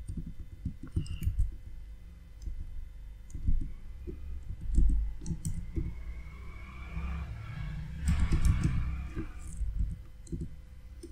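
Typing on a computer keyboard: irregular key clicks and soft knocks as a line of code is typed in bursts. A soft hiss comes in for a few seconds in the second half.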